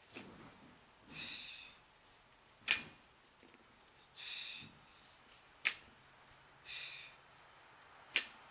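A bumper-plate barbell knocking sharply each time it touches down during repeated deadlifts, four times about two and a half to three seconds apart, with a short breath from the lifter between each knock.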